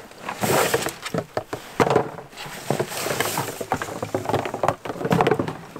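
Irregular rustling and light knocks as tangled decoy lines and plastic duck decoys are handled and pulled apart.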